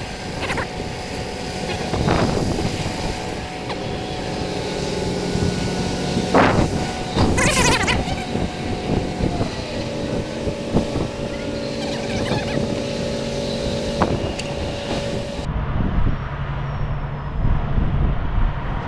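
Heavy vehicle engine running steadily, its pitch dropping about halfway through as it changes speed, with a couple of short air hisses a little earlier.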